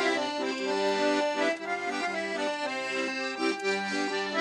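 Paolo Soprani piano accordion playing a traditional folk tune: a melody on the right-hand keys over steady chords and bass notes.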